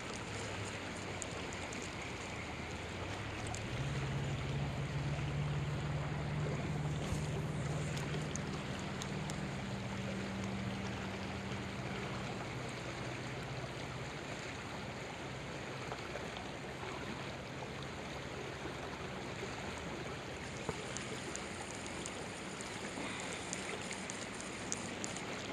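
Fast-flowing creek current rushing steadily past the bank. A low steady hum joins in about three seconds in and fades out about twelve seconds in.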